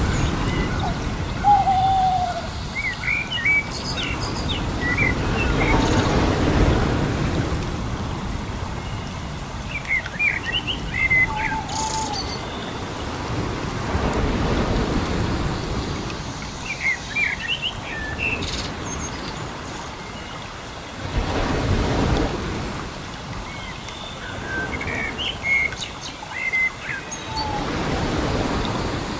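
Birdsong: short clusters of chirps recurring every several seconds, with a single lower descending call about two seconds in, over a rushing noise that swells and fades in slow waves.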